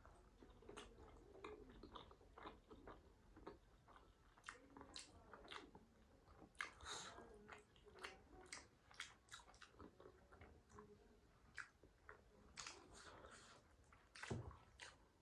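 Faint chewing and biting of momo dumplings: irregular wet mouth clicks and smacks as the food is eaten.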